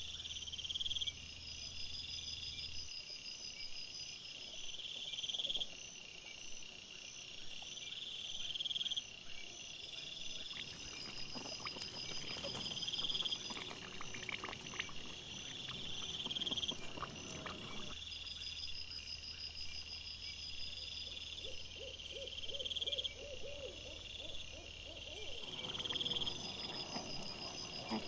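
Night insects chirping in a steady pulsing rhythm, sped up fourfold, a burst about every second and a half. Through the middle stretch and again near the end, wild boar rooting and feeding add rustling and crunching.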